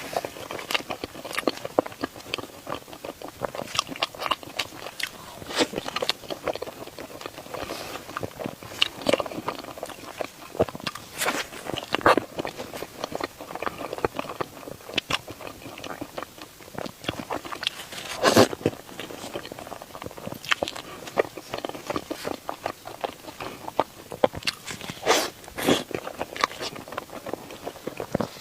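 Close-miked eating sounds: a person biting and chewing soft desserts, with irregular wet clicks and crackles.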